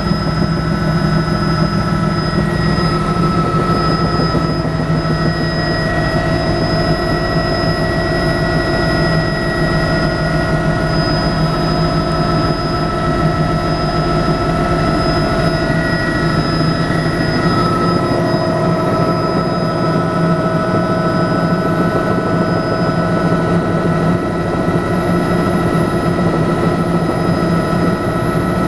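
Bell 206B-3 JetRanger III helicopter in flight, heard from inside the cabin: the turbine engine and gearbox whine as several steady high tones over a dense low rumble from the rotor and airframe.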